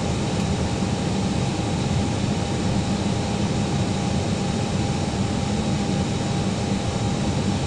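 Steady cabin noise of an Airbus airliner in flight on approach: an even rumble of engines and rushing air, with a faint steady high tone running through it.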